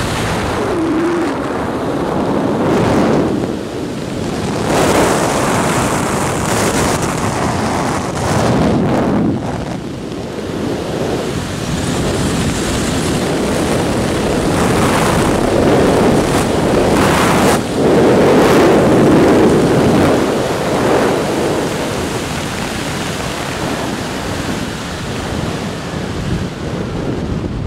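Wind rushing over the microphone of a skydiver's camera during a parachute canopy swoop. It is loud and rises and falls in several surges, easing a little near the end.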